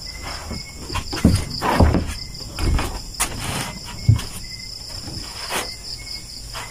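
Steady chorus of night insects, crickets among them, with several knocks and rustling thuds of people moving and handling things close by, the loudest about two and four seconds in.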